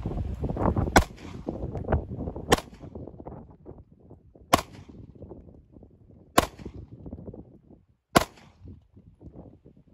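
Five single shots from a semi-automatic pistol, fired one at a time at intervals of about one and a half to two seconds.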